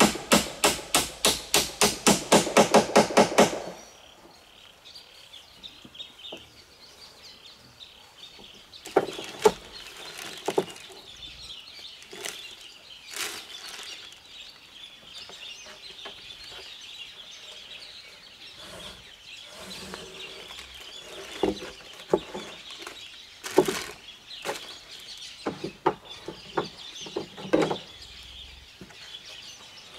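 Rapid hammering, about four or five sharp blows a second, stopping about three and a half seconds in. Then scattered knocks and rattles of corrugated roofing sheets being handled on a bamboo frame, over steady chirping and clucking of birds and chickens.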